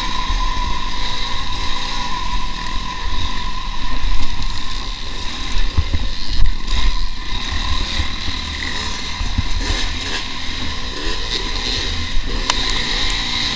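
Dirt bike engine running under load, its revs rising and falling over rough sandy ground, with heavy wind rumble on the bike-mounted microphone. A sharp knock near the end.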